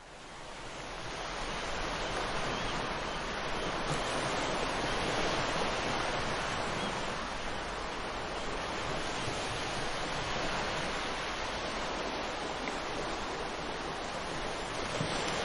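Ocean surf: a steady wash of waves as an even hiss, fading in over the first couple of seconds and then holding level.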